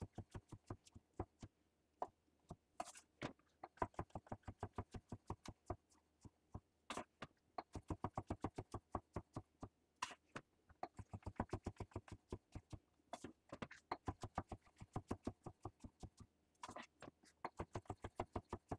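Chef's knife slicing through cremini mushrooms and tapping on a wooden butcher-block cutting board. The taps come in quick runs of several a second, with short pauses between mushrooms.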